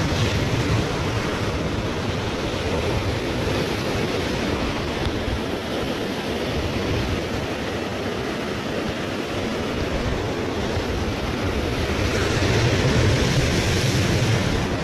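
Surf breaking and washing over a cobble beach, a steady rush that swells near the end as a bigger wave comes in.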